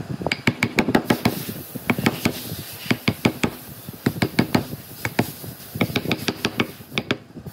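Rapid, irregular knocking and tapping of wood on wood, several sharp knocks a second with short pauses between runs.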